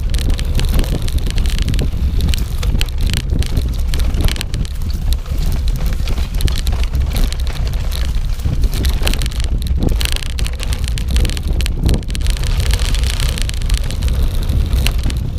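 Wind buffeting an action camera's microphone while riding a gravel bike over a rough dirt track: a steady low rumble, with frequent sharp clicks and rattles as the bike jolts over the ground.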